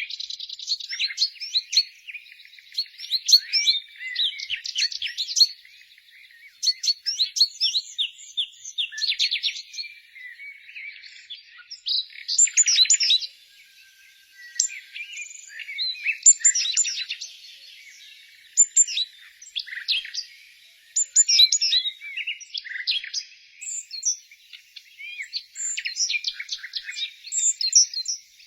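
Several songbirds chirping and singing at once, a dense run of short high chirps and fast trills with brief pauses between phrases.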